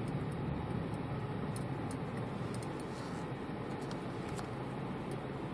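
Steady low rumble of a car driving slowly along a snow-covered road, heard from inside the cabin, with a few faint ticks scattered through it.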